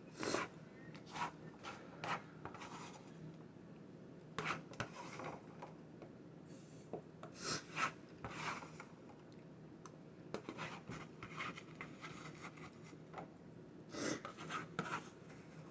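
Someone eating: a string of irregular short scraping and rubbing noises, close to the microphone.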